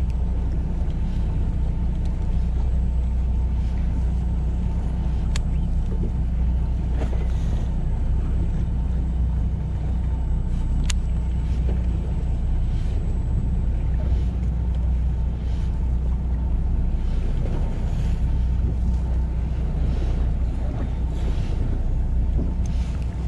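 Fishing boat's engine running steadily, a low even drone.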